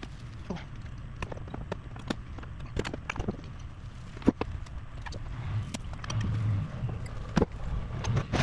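Mini excavator's diesel engine running low and steady, with scattered metal clanks and knocks as the machine is brought off its trailer. The loudest knock comes about four seconds in and another near the end.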